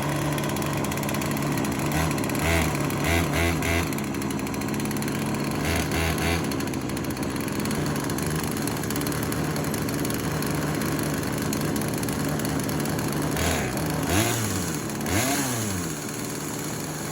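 Poulan 3816 two-stroke chainsaw running at idle, given a few short throttle blips in the first few seconds and two quick revs up and back down near the end.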